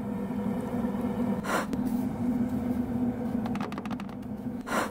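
Hands squelching marinated fish fillets in a plastic bowl and dredging them through dry cornmeal fish-fry mix, with a short swish about one and a half seconds in and another near the end. A steady low hum runs underneath.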